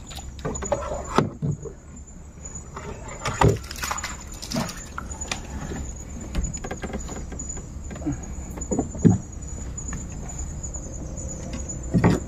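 Steady high-pitched chirring of night insects, with scattered knocks and bumps of gear being handled in a small boat, the loudest about three and a half seconds in, near nine seconds and just before the end.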